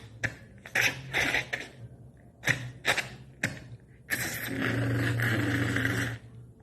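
Vocal sound effects imitating film action sounds: a series of short, breathy mouth bursts, then one long rushing hiss lasting about two seconds.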